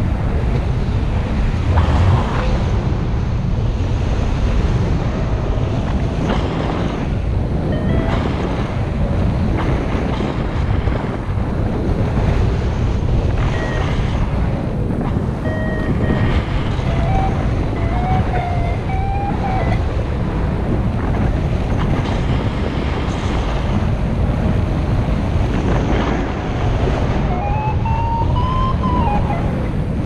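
Strong wind buffeting the microphone of a paraglider's action camera in flight: a loud, steady rumble. A few faint whistling tones glide up and down over it, one around the middle and one near the end.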